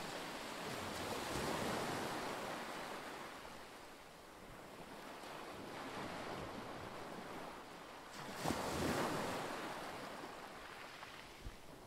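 Waves washing in with wind, the wash swelling about a second in and again about eight and a half seconds in, then ebbing.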